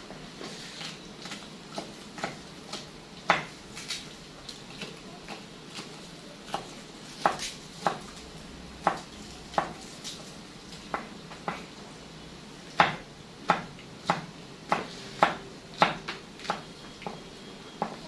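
Chef's knife chopping green bell pepper on a wooden cutting board: sharp knocks of the blade on the board, irregular at first, then quicker, about two a second, in the second half.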